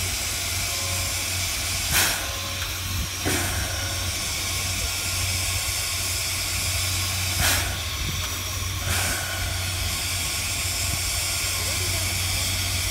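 C11 class steam tank locomotive letting off a steady hiss of steam while it stands on the turntable, over a steady low hum. Four short sharp knocks come through the hiss, two about two to three seconds in and two about seven to nine seconds in.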